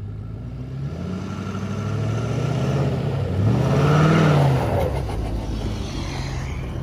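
2015 Ford F-250's 6.7 L Power Stroke V8 turbo-diesel, tuned and emissions-deleted with a newly fitted aFe cold air intake, accelerating away under throttle. The engine note builds, rises and falls in pitch at its loudest about four seconds in as the truck passes, then settles.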